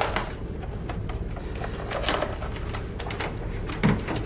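Light plastic handling sounds from an IP desk phone and its cables being fitted together, with a few soft knocks and a sharper click near the end, over a steady low room hum.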